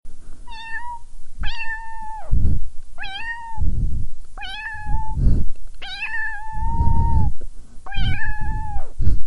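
Tabby cat meowing six times in a row. Each call is held steady for about half a second to a second and a half and drops away at the end. Low, muffled rumbles come between the calls.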